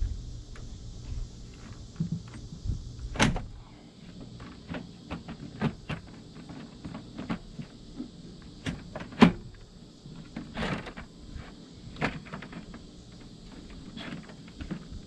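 Plastic fan shroud knocking and scraping against the radiator as it is handled and test-fitted: irregular knocks and clicks, the loudest about nine seconds in.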